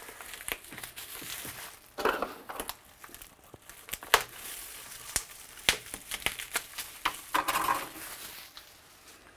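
Plastic anti-corrosion wrap crinkling and rustling as it is pulled off by hand, with a few sharp clicks.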